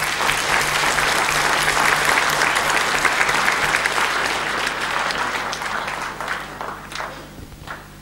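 Audience applauding: a dense round of clapping that holds for several seconds, then thins to a few scattered claps and stops near the end.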